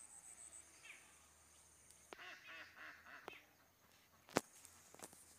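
Faint outdoor sounds: birds calling in a quick string of repeated calls lasting about a second, a little after the start. A single sharp click comes near the end and is the loudest sound.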